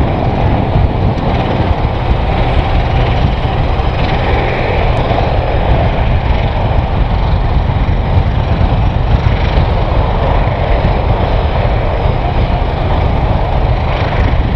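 Aircraft engines running steadily: a loud, even rumble with a hiss above it.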